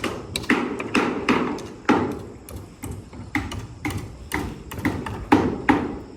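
Hammering on construction-site formwork and scaffolding: a fast, irregular run of sharp hammer blows, about two to three a second, many with a short ring after them.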